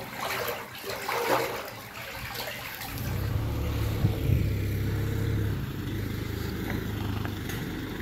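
Sewage water rushing through a sewer line under an open manhole. About three seconds in, a steady low rumble of a vehicle engine running takes over.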